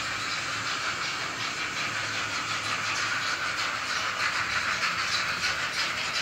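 Digital sound decoder of an Arnold N-scale model of the Reichsbahn class 41 steam locomotive 41 001 playing hissing steam-exhaust chuffs in a quick, even rhythm from its small loudspeaker. The beat becomes more distinct about halfway through.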